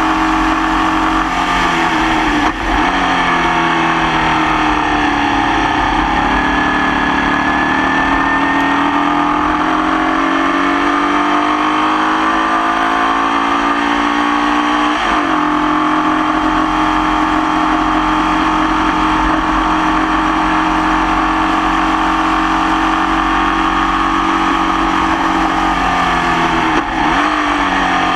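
Formula Vee race car's air-cooled Volkswagen flat-four running under load at racing speed, revs sagging and climbing, with sharp breaks for gear changes about two and a half seconds in, around the middle and near the end. The engine is running with a persistent misfire.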